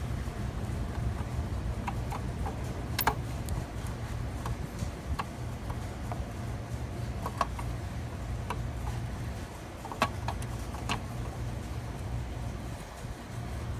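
Scattered light clicks and taps of hands handling a new H11 headlight bulb and the plastic headlight parts, over a steady low rumble.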